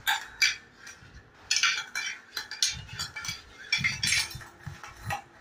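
Spoons clinking and scraping against a small metal pan as two toddlers stir and bang at it, in quick, irregular strikes.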